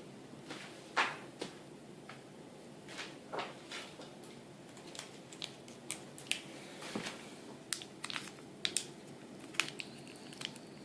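Irregular small clicks and rustles of a tire plug repair kit being handled: tools, sticky plug strips and their packaging picked up and unwrapped.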